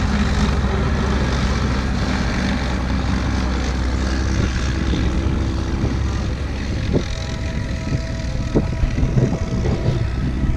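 Kettenkrad half-track's four-cylinder Opel petrol engine idling steadily with an even low hum, with a few sharp knocks in the last few seconds.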